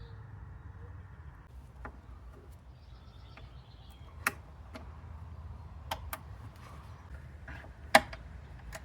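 Hand tools and small hardware clicking and tapping now and then during work on a motorcycle's starter relay mount: a handful of sharp light clicks, the loudest about four and eight seconds in, over a faint low hum.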